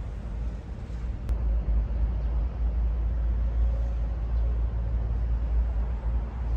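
Low, steady rumble of a cargo truck's diesel engine running, a little louder from about a second in.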